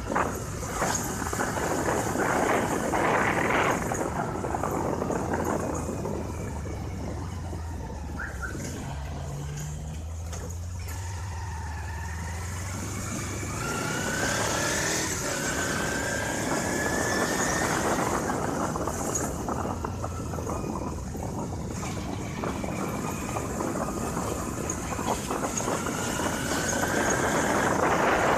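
Motorcycle engine running while riding in street traffic, with wind and road noise on the microphone. The engine note rises a couple of times as it accelerates.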